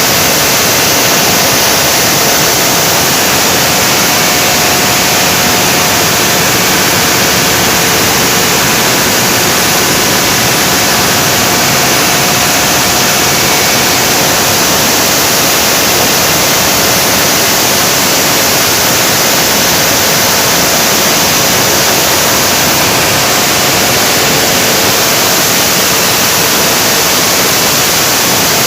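Generator running steadily under a load test: a loud, unbroken rush of noise with a faint steady hum in it.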